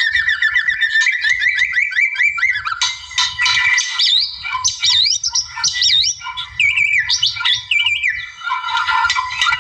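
White-rumped shama singing a loud, continuous, varied song: fast runs of repeated chirps, looping whistles that rise and fall, and harsher notes, with hardly a pause.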